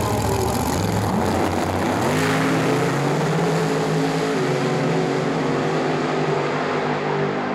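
Drag racing car engines running hard, climbing in pitch about one and two seconds in, then holding high.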